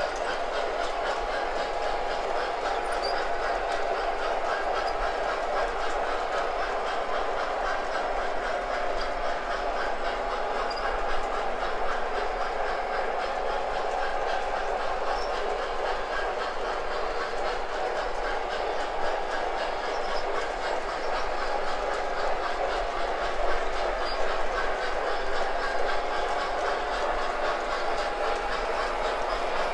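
MTH O-scale model trains running on the layout track: a steady rolling rumble with a fine, even clicking of wheels over the rails.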